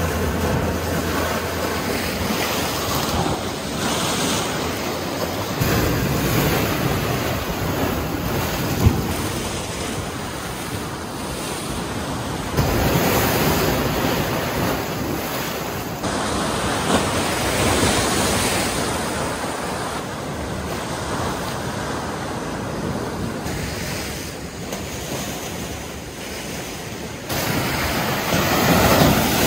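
Lake waves breaking and washing over flat rock ledges, the surf swelling and easing in surges, with wind buffeting the microphone. A single sharp click comes about nine seconds in.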